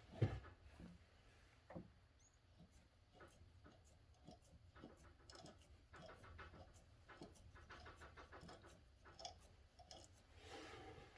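Mostly quiet, with one sharp thump just after the start and scattered faint clicks and light rattles after it.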